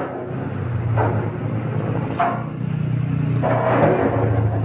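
Steady low engine rumble of street traffic, with a few brief fainter sounds over it.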